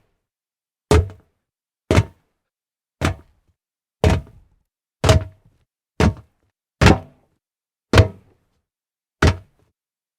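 Jump sound effects: nine separate landing thuds, about one a second, each a short heavy thump that dies away quickly into silence before the next.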